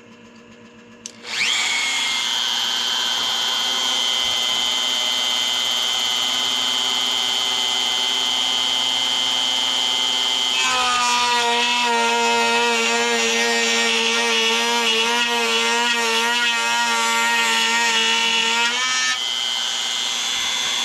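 Palm router with a channel-routing bit starting up about a second in and running at a steady high whine. About halfway through it cuts into the guitar's wooden body and the pitch drops to a lower, wavering tone as the motor labours, because the bit is taking too deep a cut in one pass. Near the end it is lifted clear and runs free again at its high whine.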